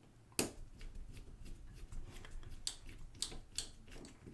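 Small screwdriver working tiny screws out of a camera's plastic lens housing: irregular light clicks and ticks of metal on screw heads and plastic, the sharpest about half a second in.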